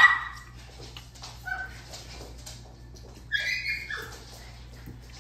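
A dog crying in short, high whines and yelps: a sharp loud yelp at the start, a brief whine about a second and a half in, and a longer whine just past three seconds. It is crying because another dog keeps pestering it to play when it doesn't want to.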